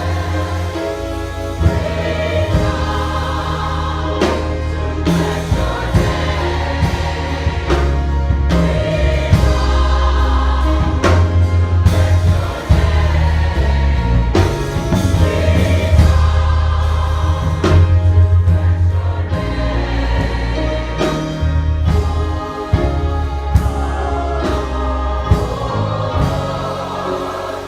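Gospel choir singing with music, over a bass line of long held notes that change every second or two.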